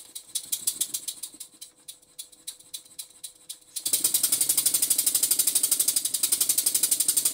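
Basset-Lowke Tangye model single-cylinder horizontal engine running on compressed air: quick, even exhaust beats, each with a hiss as air is admitted to the cylinder and the slide valve knocks on the port face. The beats are quiet and uneven at first, then turn loud and steady about four seconds in. The engine is running slightly freer with its valve timing set a little retarded.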